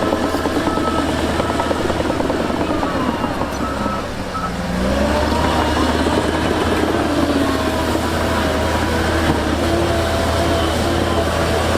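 Diesel engine of heavy earthmoving machinery running, with a reversing alarm beeping during the first few seconds. About five seconds in, the engine revs up and keeps running louder.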